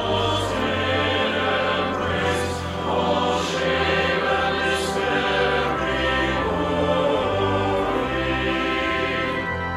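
Men's choir singing a hymn together, the voices recorded separately at home and mixed into a virtual choir. The singing stops near the end.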